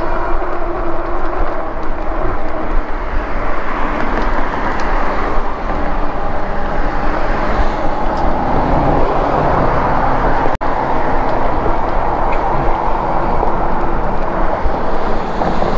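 Steady wind rushing over the camera microphone with tyre and road noise from a moving Lectric e-bike, cutting out for an instant about two-thirds of the way through.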